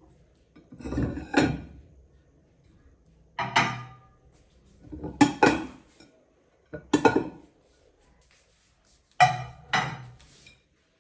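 Plates being set down one after another onto charger plates, clinking in several separate knocks, some in quick pairs, with quiet between them.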